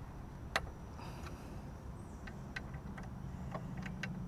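Irregular metal clicks and ticks from a wrench on a crash bar's mounting bolt and nut as it is tightened down. One sharp click comes about half a second in, then a cluster of lighter ticks in the second half.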